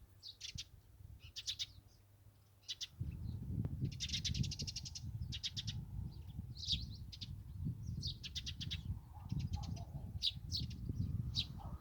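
Small birds chirping and trilling in short, high calls repeated throughout, with a fast trill about four seconds in. From about three seconds in, a low, uneven rumbling noise runs underneath the birdsong.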